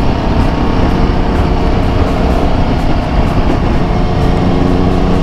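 Royal Enfield Himalayan 450's single-cylinder engine running steadily at cruising speed, heard from the rider's position, with a constant low rush of wind and road noise.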